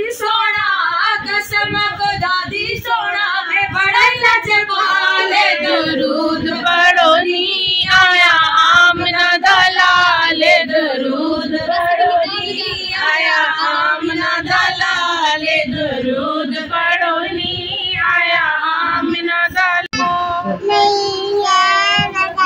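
Female voices singing a naat, a devotional song in praise of the Prophet, in a continuous melodic recitation with no instruments.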